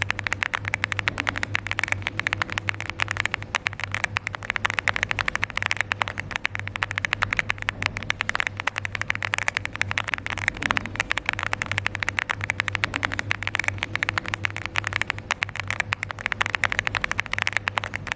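Fast, continuous typing on a LEOBOG Hi8 mechanical keyboard fitted with Barbie switches: a dense, unbroken clatter of keystrokes over a steady low hum.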